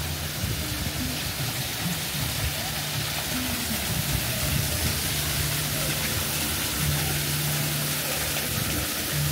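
Steady rushing noise with indistinct voices mixed through it.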